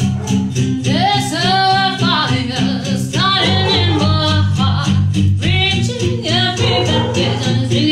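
A woman singing into a handheld microphone over backing music with guitar and a steady beat; her voice comes in about a second in, in held phrases with vibrato.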